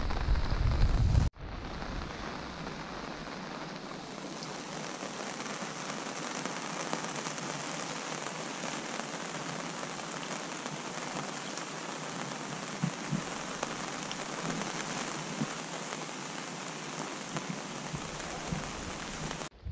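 Steady rain falling, an even hiss with a few louder single drops. In the first second or so, wind buffets the microphone with a low rumble, which cuts off abruptly.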